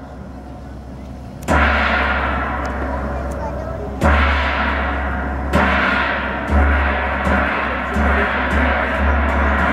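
Large gong and big drum struck on the float: single strokes every second or two, each gong stroke ringing out and slowly fading over a deep drum beat. Near the end the strokes come quicker, about two a second.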